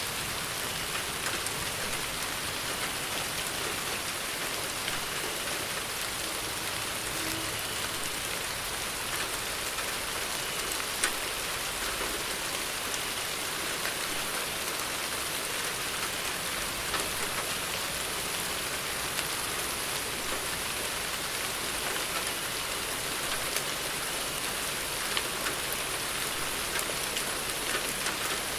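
Steady rain falling: a dense, even hiss with scattered sharp drop ticks, one of them louder about eleven seconds in.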